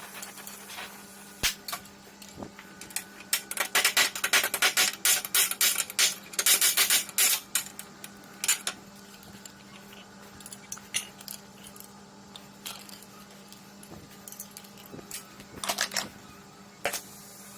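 Small metal objects clinking and rattling against each other: a dense run of rapid clicks for a few seconds, then scattered single clicks, over a steady low hum.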